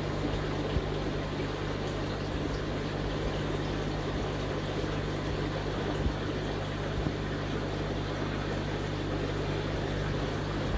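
Aquarium pumps and filters running: a steady low hum under a continuous rushing of water, with a few faint knocks, one about a second in and two more around the middle.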